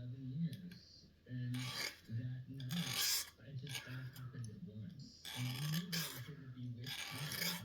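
A file rasping on the edge of a metal hair clip in about four separate strokes, rounding off the edges of an improvised handcuff shim.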